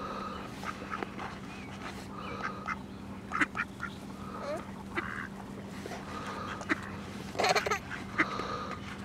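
Mallard ducks quacking and chattering in short, scattered calls, with a louder cluster of calls near the end.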